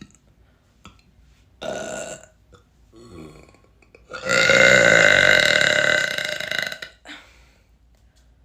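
A woman burping: a short burp about two seconds in, a faint one about a second later, then a long, loud belch held at a steady pitch for over two seconds.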